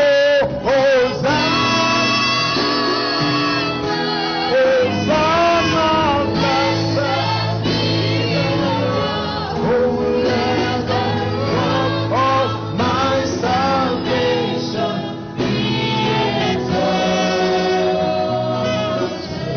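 Church choir singing a gospel worship song with instrumental backing.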